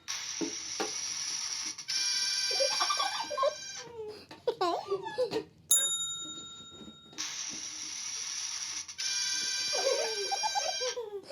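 An edited sound-effect sequence that plays twice. Each time a hiss gives way to a buzzing tone with warbling, swooping sounds, and a single bright bell ding comes about halfway through.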